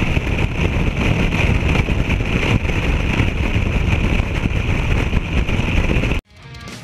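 Car driving fast on a highway, heard from a camera mounted on the outside of the car: dense engine and road noise mixed with wind rush. It cuts off abruptly near the end.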